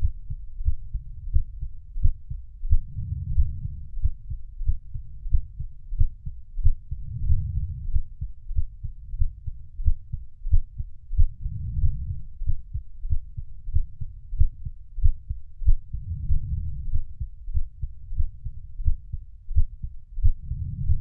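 Heartbeat sound: muffled, low thumps beating steadily, with a low swell that comes back every four seconds or so.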